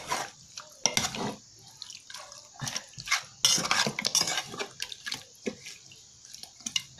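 Raw chicken pieces being mixed by hand with wet spice paste in a metal pot: irregular wet squelches and slaps, with knocks of the chicken and fingers against the pot.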